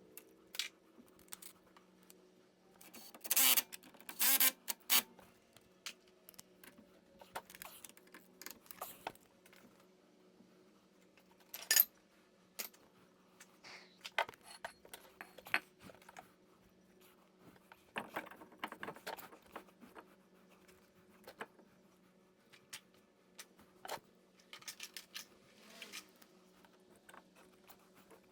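Metal hand tools and parts clinking and clattering in scattered knocks and clicks, with a short cluster of louder metallic strikes a few seconds in and single sharp clinks later on.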